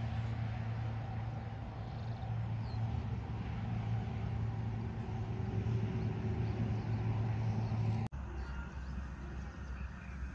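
A motor's steady low hum. It breaks off abruptly about eight seconds in and carries on at a lower pitch.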